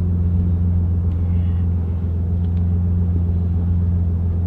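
Car engine running at a steady low idle drone while the car is eased around at walking pace to straighten it in a parking space, with no revving.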